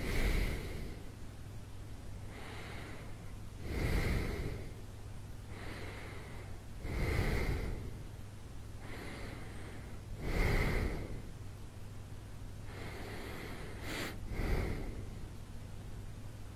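A sleeping man breathing slowly and deeply: a faint breath followed by a louder one about every three and a half seconds, five times, over a steady low hum.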